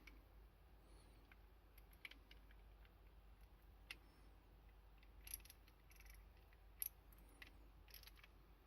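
Faint, irregular clicks and taps of small metal tool parts being handled, with a few sharper clicks in the second half. These are scattered rather than a steady ratchet rhythm.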